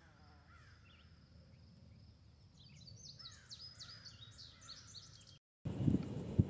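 Faint birdsong: several birds chirping in quick, high, rising and falling notes, getting busier after about two and a half seconds. Near the end it cuts off and gives way to a louder low outdoor rumble with a sharp knock.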